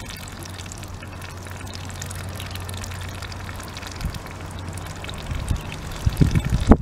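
Muscovy ducklings dabbling their bills in wet mud: a steady, wet sputtering and slurping. Wind buffets the microphone in low gusts near the end.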